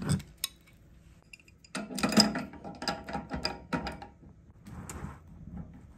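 Metal clicking and clinking as an adjustable wrench works on a brass flare fitting, tightening a stainless steel flexible gas hose onto a quick-connect coupling. There is a sharp click right at the start, then a run of quick clinks and rattles from about two seconds in, and a short scrape near the end.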